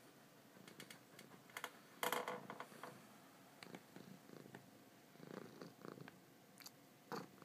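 Domestic cat purring softly, with scattered light clicks and a brief louder rustle about two seconds in.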